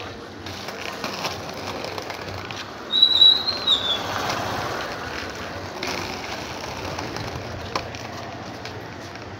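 Quad roller-skate wheels rolling on a concrete road, a steady rolling rumble. About three seconds in, a short high chirp drops in pitch.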